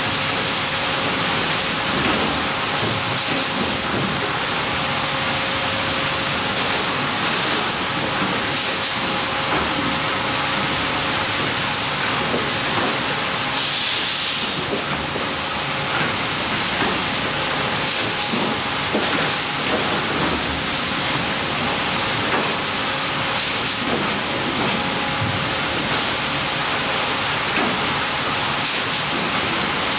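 Horizontal band resaw line and its chain and roller infeed conveyors running: a steady, loud machinery din like a hiss, with a steady hum under it and occasional light knocks.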